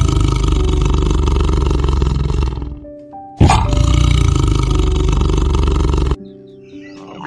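Tiger roaring twice, each a loud, rough roar about three seconds long; the second one cuts off abruptly. Soft piano music plays underneath.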